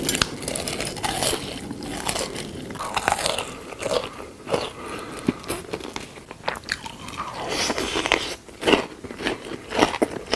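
Close-miked eating sounds: crunchy biting and wet chewing, with dense crackling clicks and louder bursts of crunching near the middle and toward the end.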